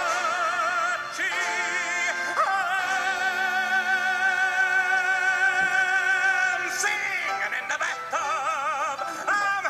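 Recorded operatic singing with wide vibrato and no clear words, over musical accompaniment. One long held note runs from about two and a half seconds in to about seven seconds in, with shorter wavering notes before and after it.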